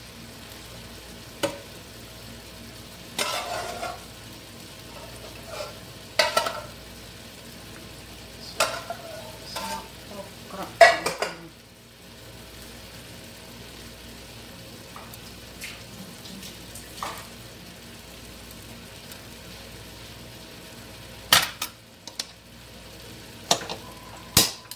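A utensil stirring okra in a cooking pot, knocking and scraping against the pot in short clusters of clinks with pauses between, over a steady background hiss.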